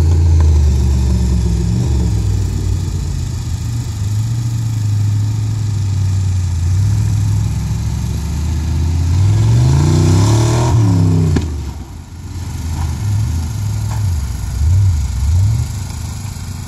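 Off-road competition 4WD's engine running steadily, then revving up in a rising pitch about nine seconds in and dropping away suddenly a couple of seconds later. After that it revs up and down unevenly at lower speed.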